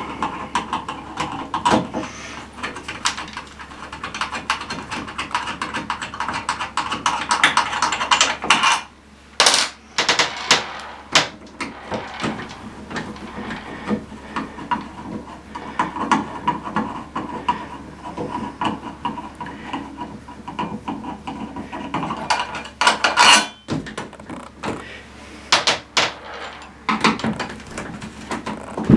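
A hex key turning the set screw in a chrome shower valve handle, metal against metal: a long stretch of fine clicking and scraping, then a few sharp clicks and knocks as the screw works loose.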